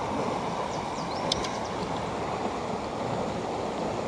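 Steady rush of a shallow, rocky river's current flowing past, with one short sharp click about a second in.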